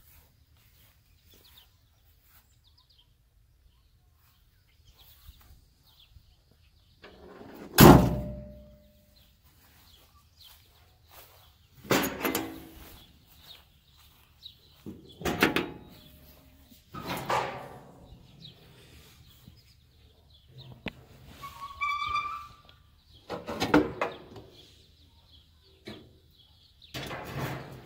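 The steel cab door of a 1950 Willys truck slammed shut about eight seconds in: one loud metallic thunk with a short ring. Several softer knocks follow over the next twenty seconds.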